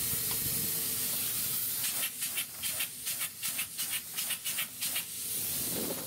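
Polyurea spray gun hissing as it sprays lining at high pressure. It runs steadily, then cuts in and out rapidly in short spurts, about four a second, for about three seconds, then hisses steadily again.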